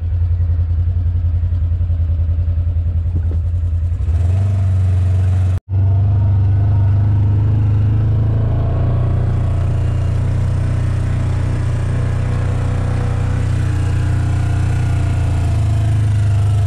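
A vehicle's engine running steadily under way, a deep even hum heard from the seat, cut off for a split second about five and a half seconds in.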